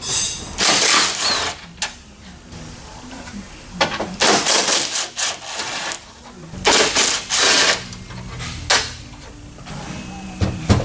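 Hand tools at work in a car's engine bay: three bursts of rattling, ratchet-like mechanical noise of a second or two each, with a few sharp clicks between them.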